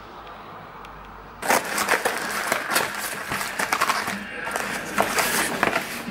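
Cardboard snack box being handled and opened close up: dense rustling and crackling with many sharp clicks, starting abruptly about a second and a half in.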